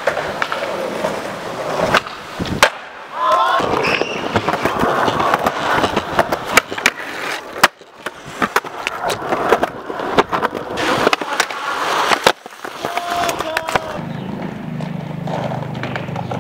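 Skateboard wheels rolling on concrete and paving, broken again and again by sharp clacks of the board popping, landing and striking the ground.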